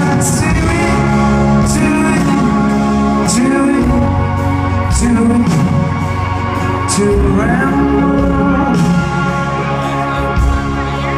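Live rock band playing loudly in a large hall, heard from the crowd: drums with repeated cymbal hits over bass, acoustic guitar and sustained pitched instruments, with some singing.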